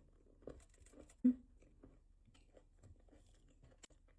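Close-up chewing of a mouthful of chocolate: soft, irregular mouth and jaw sounds with light crunches, one louder about a second in, and a sharp click near the end.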